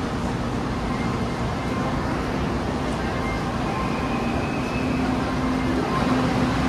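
Steady running noise of a moving passenger train heard from inside the carriage, with a faint hum under it.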